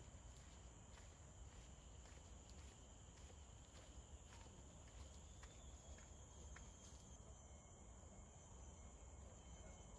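Faint forest ambience: a steady high-pitched insect hum over a low rumble, with soft footsteps on a dirt trail ticking about twice a second.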